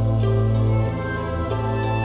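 Soft, slow background music with held tones, changing chord about one and a half seconds in.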